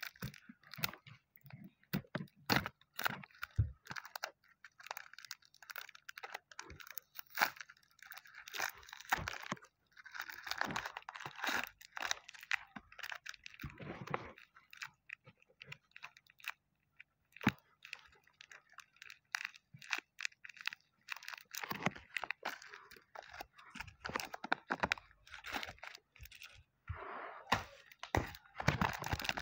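Plastic wrap and paper crinkling and tearing by hand as a small sealed blind-bag packet is unwrapped, with irregular sharp crackles and snaps.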